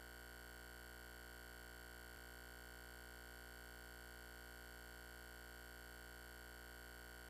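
Near silence: a faint steady low hum with a thin high tone over it, the background noise of the LaserDisc playback, with a tiny tick about two seconds in.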